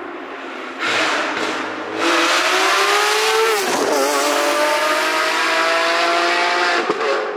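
Lamborghini Aventador SVJ's naturally aspirated V12, fitted with a Novitec exhaust, accelerating hard and loud: the pitch climbs, dips sharply once near the middle, then climbs again before falling away near the end.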